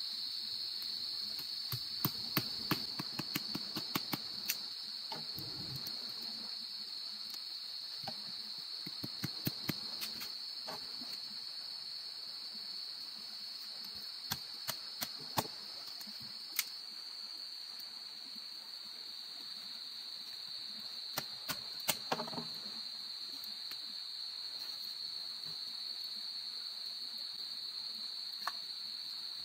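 Steady high-pitched insect chorus, with scattered sharp clicks and knocks in small clusters.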